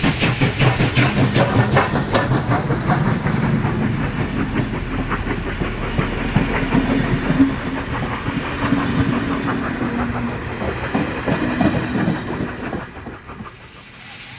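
A C36-class steam locomotive passes at speed with a rapid, regular exhaust beat. Its carriages follow, their wheels clattering over the rail joints, and the sound fades away near the end.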